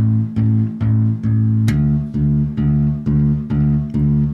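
Electric bass guitar plucked on its open strings in an even, steady pulse of about two and a half notes a second, as a right-hand exercise for plucking evenly. Not quite two seconds in, it moves to a lower open string and keeps the same pulse.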